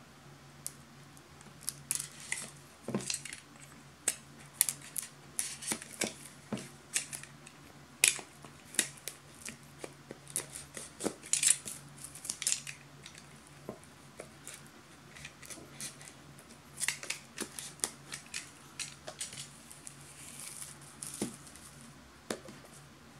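Snap-off utility knife blade scratching and slitting the cellophane shrink-wrap on a small cardboard box, in an irregular run of sharp scrapes, clicks and crinkles of plastic film.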